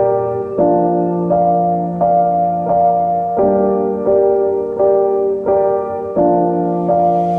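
Background piano music: slow chords struck about every two-thirds of a second.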